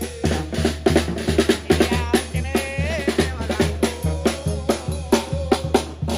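Live street brass band playing: a sousaphone bass line and a steady drum beat under trumpet and trombones holding a wavering melody.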